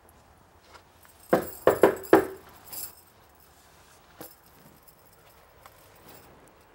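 Four quick knocks on a wooden door a little over a second in, followed by a lighter clink and a single faint click.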